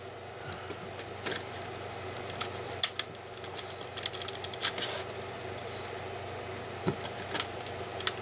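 Scattered clicks and light knocks of hard plastic tool parts being handled: the interchangeable heads and body of a cordless multi-tool being picked up and shifted about.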